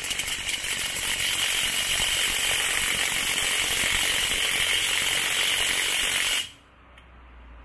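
Cordless brushless 1/2-inch impact wrench hammering continuously on a car wheel's lug nut, then cutting off suddenly about six and a half seconds in. The nut does not come loose: the wrench, on its high-power setting, lacks the power to break it free.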